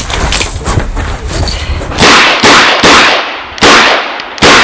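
Five handgun shots fired in a quick string, starting about two seconds in, each a sharp crack with a short echo; a rustling, windy noise comes before them.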